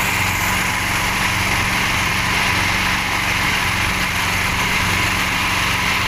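Small wooden fishing boat's engine running steadily under way, with a constant rush of wind and water over it.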